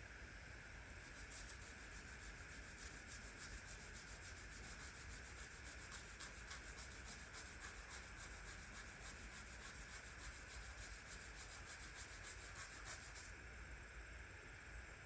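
Faint, rapid rubbing strokes against a surface, like hand sanding or scrubbing, stopping about two seconds before the end.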